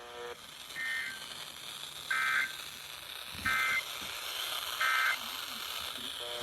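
Emergency Alert System SAME end-of-message data bursts: four short, shrill two-tone digital chirps repeating about every 1.4 seconds, marking the end of the warning.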